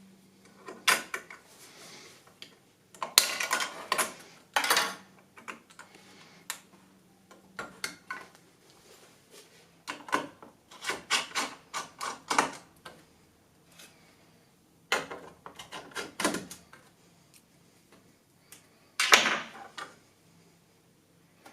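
Computer components and their packaging being handled: irregular clicks, knocks and rustles, with a sharp knock about nineteen seconds in the loudest.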